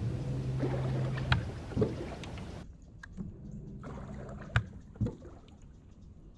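Low steady hum of a small motor, which stops about a second and a half in and returns for about a second and a half near the middle, with a few sharp knocks.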